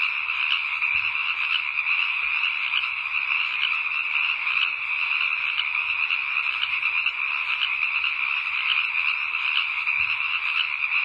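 Dense, steady night chorus of frogs calling, many overlapping quick pulses with no break.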